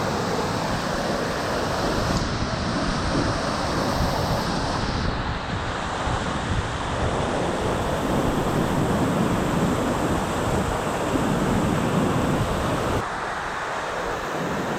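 Waterfall rushing steadily, with wind buffeting the microphone; the low rumble eases about 13 seconds in.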